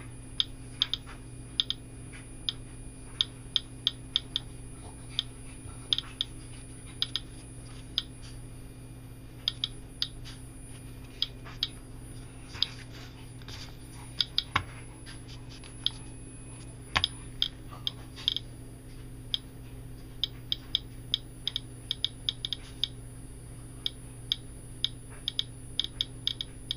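Russian-made Geiger counter clicking irregularly as it counts radiation from rain-wet paper towel samples, often two or three clicks a second and sometimes in quick bunches. That is far above the click every 4 or 5 seconds the owner calls normal, a sign of raised radiation levels. A faint steady hum runs underneath.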